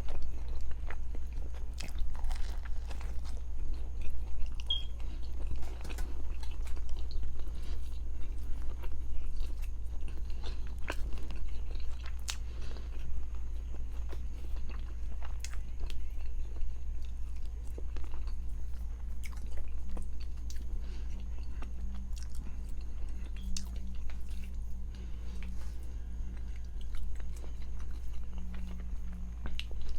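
Close-miked biting and chewing of an egg, turkey and cheese biscuit, with many small wet and crunchy mouth clicks, over a steady low hum.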